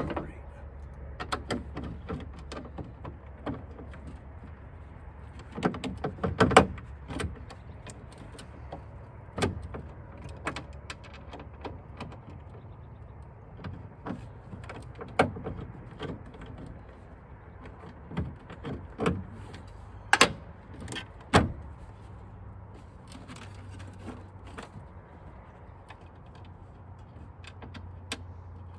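Hand tools clinking and knocking against the steel inside of a 1957 Plymouth station wagon tailgate, in scattered sharp taps with two busier bursts of clanks, about six seconds in and again about twenty seconds in. A steady low hum lies beneath.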